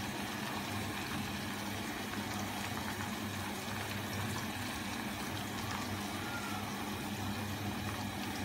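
Beef mince kebab patties frying in a pan of hot oil, a steady sizzle, while beaten egg is trickled by hand into the oil to form a lacy net. A low steady hum sits underneath.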